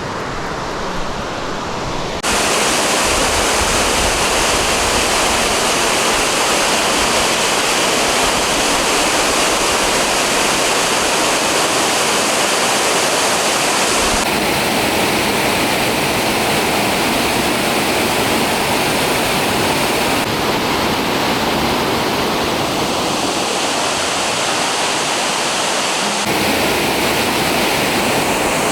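Waterfall: a loud, steady rush of falling water. Its tone shifts abruptly a few times, about two seconds in and again later, as if cut between different spots.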